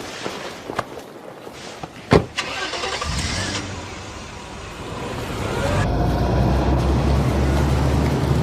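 A single sharp knock, then a car engine starts and runs. From about five seconds in it grows louder into a steady low running sound.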